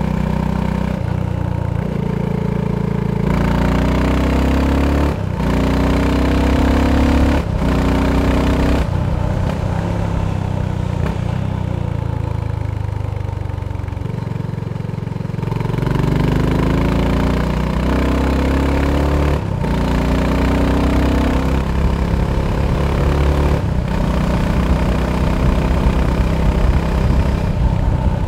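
BSA Gold Star 650's single-cylinder engine accelerating on the move, its pitch climbing and breaking off at each upshift. It does this in two runs of about three rising climbs each, with a steadier stretch between them, then settles to a steady cruise near the end.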